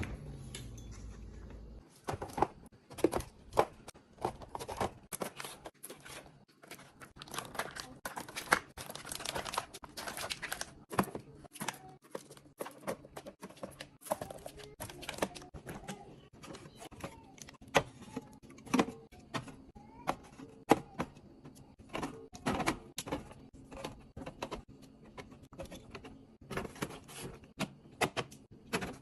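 Snack packages, bottles and plastic containers being handled and set down during a fridge and snack-drawer restock: a steady run of clicks, knocks and clatters, with a stretch of crinkly packaging rustle in the middle.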